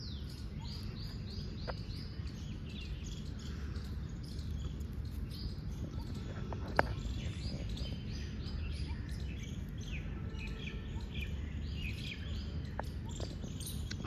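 Small birds chirping and twittering continuously over a steady low outdoor rumble, with one sharp click about seven seconds in.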